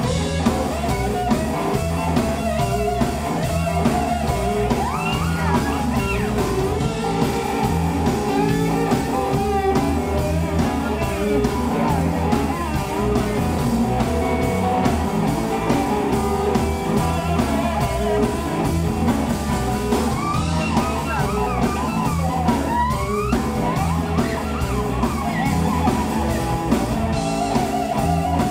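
Live electric blues band playing without vocals: an electric guitar lead with bent notes over bass guitar and a drum kit.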